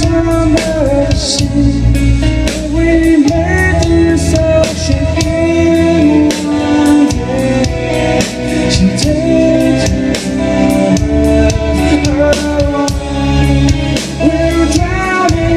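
Live rock band playing a slow passage, a man singing over sustained guitar, bass and drums, recorded from the audience.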